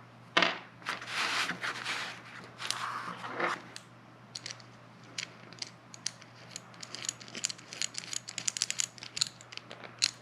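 Small metal tool parts being handled and screwed together: rustling and scraping for the first few seconds, then a rapid, irregular run of small clicks as a square insert is threaded into a watch case back opener.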